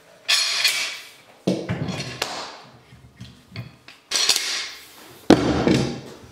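Steel bar clamps clanking as they are handled and set down on a wooden workbench: twice a bright metallic rattle, each followed about a second later by a heavier clunk.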